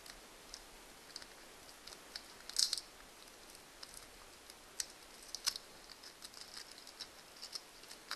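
Steel fish tape being handled and fed out: scattered light clicks and ticks, with a louder clatter about two and a half seconds in and quicker ticking toward the end.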